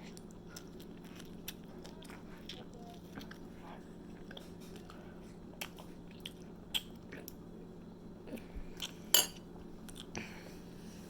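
Close-up sounds of a person eating a cheese hoagie: bites and chewing with scattered soft crunches and wet clicks, the loudest about nine seconds in, over a steady low hum.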